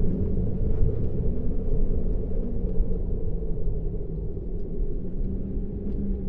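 A deep, steady low rumble with a few faint sustained tones in it, easing slightly in level toward the end.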